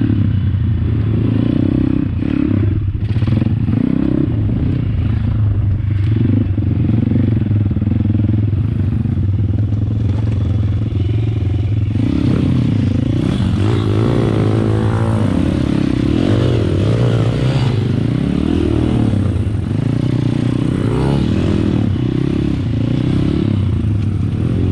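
MRF 140 RC Big pit bike's 140 cc single-cylinder four-stroke engine running under way. The revs rise and fall over and over, more often and more sharply in the second half.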